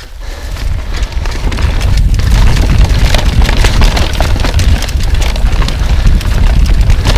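Enduro mountain bike riding fast down a dirt trail, heard from a pole-mounted action camera: wind buffeting the microphone under a dense clatter and rattle of tyres and bike over the rough ground. Somewhat quieter at first, then louder for the rest.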